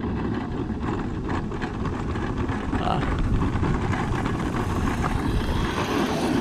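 Steady low rumble of wind buffeting the microphone and road noise from an open vehicle riding along a street.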